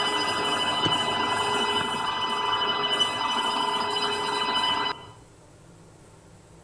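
Internal grinding machine running, a small grinding wheel working inside a rotating workpiece: a steady high-pitched whine over a grinding hiss, which cuts off suddenly about five seconds in, leaving faint room tone.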